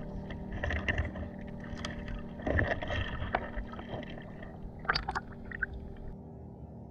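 Water sloshing and swishing around an action camera moving through shallow seawater, with scattered sharp clicks. About five seconds in there is a short burst of splashing as the camera breaks the surface, and after that the sound goes dull.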